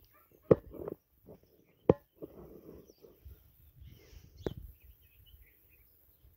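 Quiet rural outdoor ambience broken by three sharp knocks, the loudest about four and a half seconds in, with faint bird chirps in the background.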